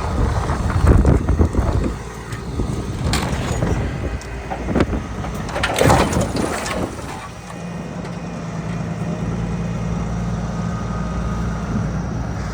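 Overturned semi truck and trailer being winched upright by heavy wreckers: crunching, scraping metal impacts over the first half, loudest about six seconds in, over the rumble of the wreckers' diesel engines, which then run on steadily.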